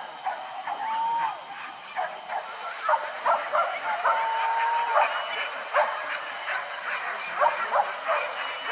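A pack of leashed hunting dogs yapping and yelping excitedly in quick, irregular cries, with two longer held high notes among them: a short one about a second in and a longer one near the middle.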